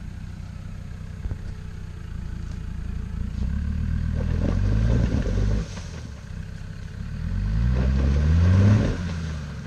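Land Rover Defender Td5's five-cylinder turbodiesel running low and steady, then revved twice with rising pitch as the truck climbs a rocky slope. Each rev cuts off abruptly.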